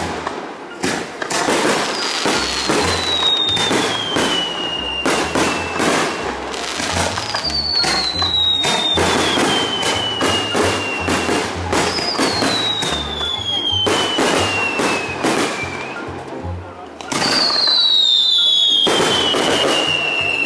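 Fireworks display: aerial shells bursting and crackling in quick succession, with four long falling whistles about five seconds apart. The bursts grow louder about two-thirds of the way in.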